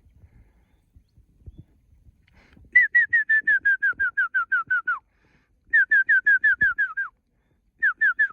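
A bird calling: three bursts of rapid, clear whistled notes, about seven a second, each note dropping slightly in pitch, the bursts trailing lower at their ends.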